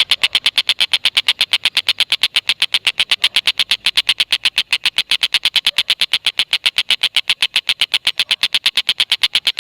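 Tengkek buto kingfisher giving its 'ngekek' call: a long, unbroken chatter of rapid, evenly spaced sharp notes, about eight a second, with no pause.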